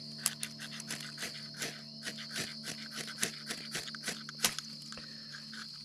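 Steady high-pitched insect chorus of crickets over a low steady drone, with irregular sharp clicks and snaps of something being handled close by.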